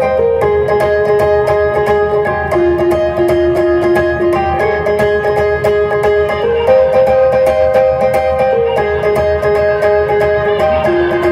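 Rock band playing amplified live during a sound check: a melody of long held, sustained guitar notes stepping between a few pitches every second or two over a steady drum beat.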